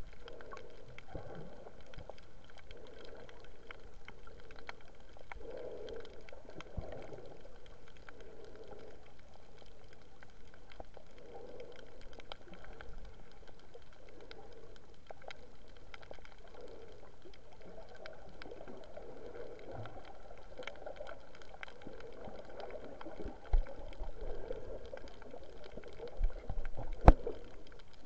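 Muffled underwater water noise heard through a submerged camera's housing: a steady swirling wash with scattered faint clicks. A few dull knocks come in the last five seconds, the loudest just before the end.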